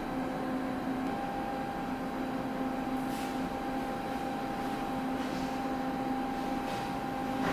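Steady mechanical hum with a few faint brief swishes.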